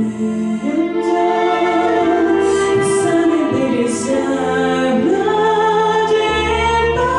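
A woman singing with a recorded backing track, holding long notes with vibrato over sustained bass and chords.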